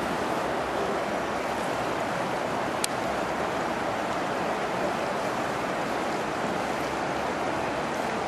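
Steady rushing of floodwater running over pavement and through the fences, with one short click about three seconds in.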